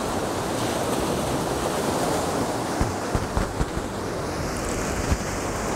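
Ocean surf washing steadily onto a beach, with wind on the microphone and a few short low thumps in the second half.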